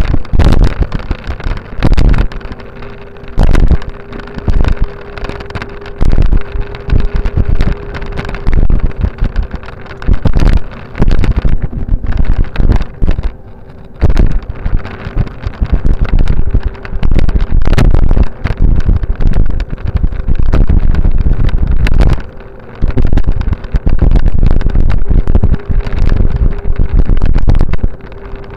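Wind buffeting the microphone of a camera travelling along a paved path: loud gusty rumbles that rise and fall every second or two, with sharp knocks and rattles from the ride and a faint steady whine underneath.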